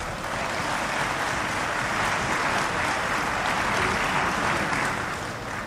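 Members of parliament applauding in the chamber, a dense even clapping that starts at once and dies away near the end.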